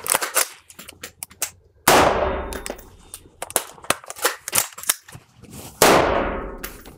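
Two gunshots about four seconds apart, each ringing out with a long echo off the walls of an indoor shooting range, with sharp metallic clicks of rifle handling in between.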